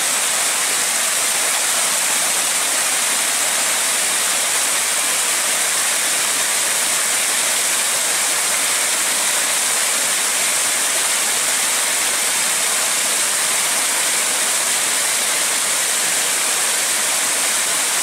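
Steady rush of river water spilling over a low concrete weir, an even hiss with no breaks or changes.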